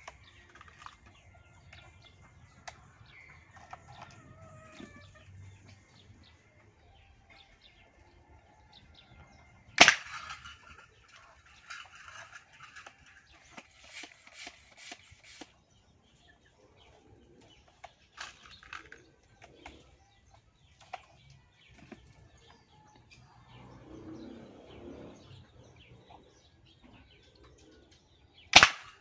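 Two sharp shots from a homemade PVC toy rifle, one about ten seconds in and one near the end, with faint chicken clucks and small clicks between them.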